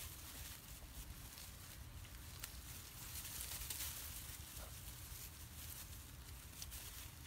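Faint rustling of dry straw as a litter of piglets scuffle and climb over one another, with a few light ticks and a louder patch of rustling about halfway through.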